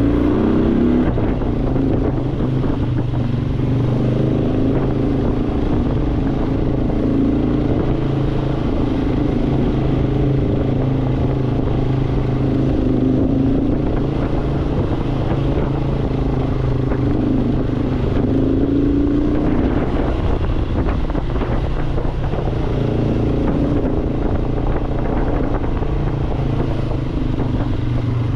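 Motorcycle engine running at low road speed, heard close from the rider's seat, its pitch drifting gently up and down with the throttle as the bike rolls along.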